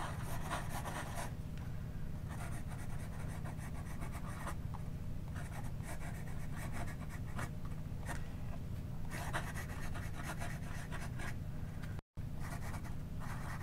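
Fountain pen nib scratching across notebook paper in a run of short handwriting strokes with brief pauses between them; the nib is a medium ground to a cursive italic. A steady low hum sits underneath, and the sound cuts out for an instant near the end.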